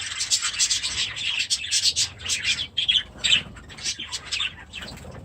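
Budgerigars chirping: a rapid, continuous run of short, high, scratchy chirps, thinning out and growing quieter in the last second or so.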